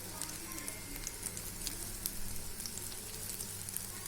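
Batter-coated bitter gourd slices sizzling in shallow oil on a dosa tawa, with a steady hiss and scattered small crackles and pops.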